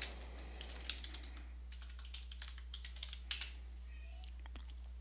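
Computer keyboard typing: an irregular run of key clicks lasting about three seconds, with a sharper stroke near the start and another near the end.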